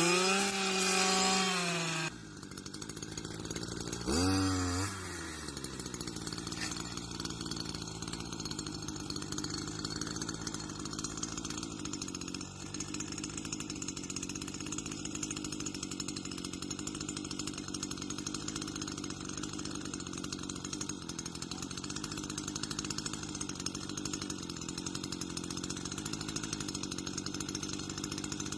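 Stihl petrol brush cutter revving up and down for the first two seconds, with a short rev about four seconds in. It then runs steadily at high speed while cutting grass and weeds.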